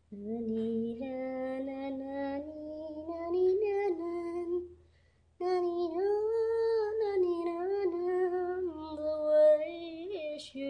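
A wordless lullaby sung in "na ni na" syllables, in two phrases with a short pause about halfway.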